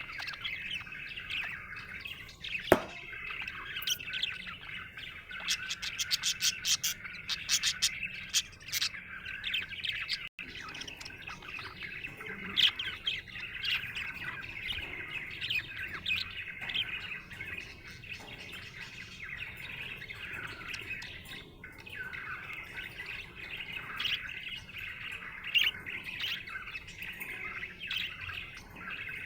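Budgerigar chirping and warbling without a break, with a sharp loud click about three seconds in and a run of quick clicks in the middle.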